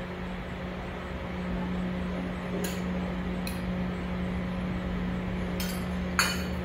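A spoon clinking lightly against small steel bowls and jars, about four times from the middle on, the last the loudest, over a steady low hum.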